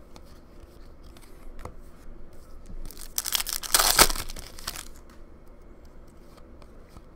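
Foil wrapper of a hockey trading-card pack being torn open and crinkled by hand, loudest about four seconds in and lasting a couple of seconds.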